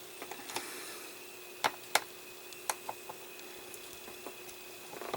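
Small screws being driven into a plastic model wheel, with a few light, sharp clicks and taps of the parts and tools being handled.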